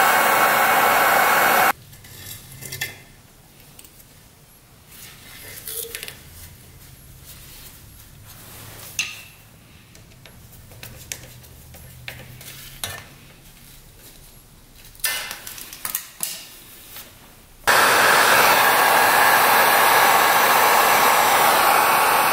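A loud, steady blower-like rushing noise cuts off abruptly about two seconds in and comes back just as suddenly near the end. In the quiet stretch between, there are scattered small clicks and knocks of a rubber fuel line being worked onto a mini bike's carburetor with a screwdriver.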